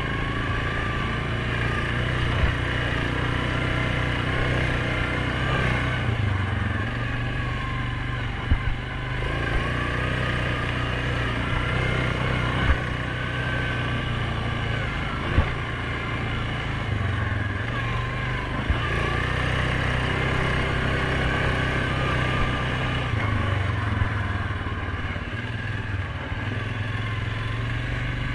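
2019 Suzuki KingQuad 750's single-cylinder four-stroke engine running steadily under way, its note easing and swelling several times with the throttle, with a whine rising and falling with speed. Sharp knocks sound now and then over the engine.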